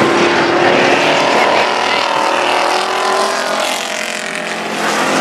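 Racing pickup trucks' engines running hard as the pack circles the dirt oval, several at once, their engine notes sliding slowly lower in the first few seconds. The sound eases slightly about four seconds in, then builds again near the end.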